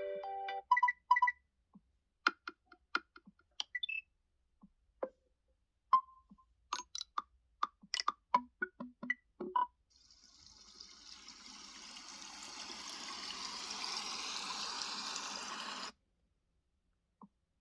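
Google Pixel 7a ringtone: sparse, short scattered notes and clicks, then a swelling hiss like rushing water that builds for several seconds and cuts off suddenly.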